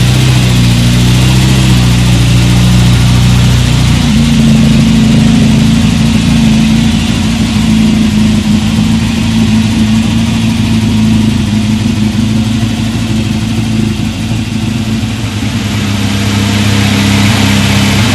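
1976 Jeep CJ7 engine running steadily. Its pitch steps up to a higher engine speed about four seconds in, holds there, and eases back down near the end.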